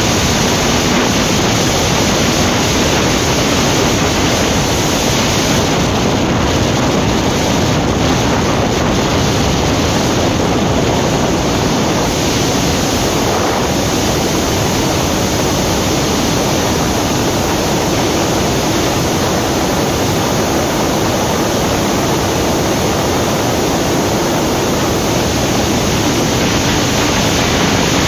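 Steady, loud rush of wind over the microphone of a Yamaha R15 V3 motorcycle ridden in sixth gear at about 90–106 km/h, with the bike's engine running under it.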